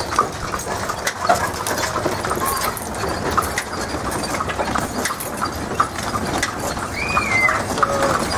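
Horse's hooves clip-clopping on a paved road as a horse-drawn buggy rolls along, with the carriage knocking and rattling over the bumps. A short high chirp rises and falls about seven seconds in.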